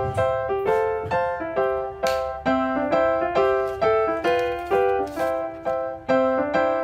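Background music: a piano-like keyboard melody of quick, evenly spaced notes, each struck and fading, in a repeating pattern.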